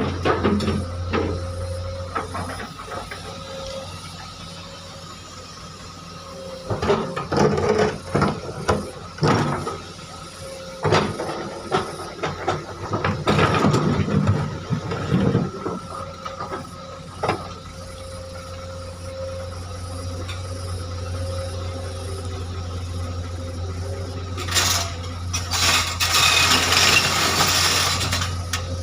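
Hydraulic excavator running steadily while loading boulders into a dump truck. Rock and bucket knocks and clatter come in a cluster about a third of the way in. A loud burst of hiss follows near the end.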